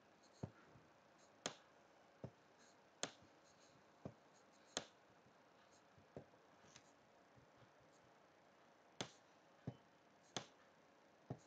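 Sharp, irregular clicks of a stylus tapping down on a writing tablet as strokes are written, about a dozen spaced half a second to two seconds apart.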